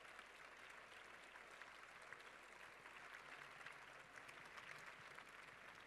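Faint applause from a large audience, a steady patter of many hands clapping.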